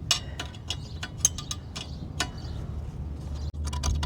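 Metal tools clinking against a brake caliper as a caliper bolt is loosened with its nut held by vise grips, then a fast run of ratcheting clicks near the end as the bolt is turned.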